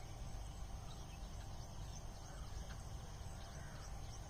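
Quiet outdoor ambience: a steady high-pitched insect drone over a low rumble, with a few faint short chirps scattered through it.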